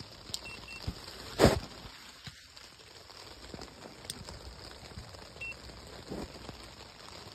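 Rain falling on a tent: a steady hiss of rain with scattered drops tapping on the fabric, and one much louder thump about a second and a half in.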